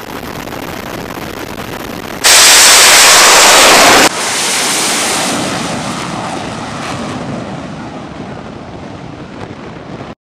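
Fighter jet taking off from an aircraft carrier's flight deck: a steady rush of wind noise at first, then about two seconds in a very loud jet-engine roar at full power that stops abruptly, followed by the jet's roar fading slowly as it climbs away.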